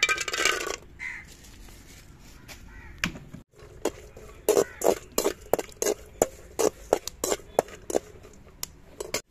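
Metal spatula stirring cashews and raisins frying in ghee in an aluminium kadai, knocking and scraping against the pan about three times a second through the second half. A crow caws once at the very start.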